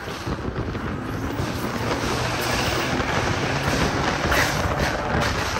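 BMW G80 M3's twin-turbo straight-six running hard and its tyres sliding as the car drifts through a corner, under heavy wind noise on the microphone.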